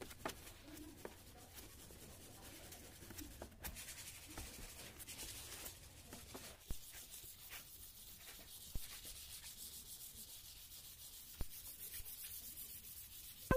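Faint, steady hand-sanding: sandpaper rubbed in quick back-and-forth strokes over the painted steel door panel of a Hindustan Ambassador, wearing down the old white paint, with a few light knocks along the way.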